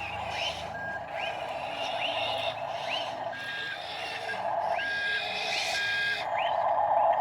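Small electric motors of radio-controlled construction models whining steadily, getting louder near the end, with a few short electronic beeps like a reversing alarm. Short rising chirps repeat about once a second throughout.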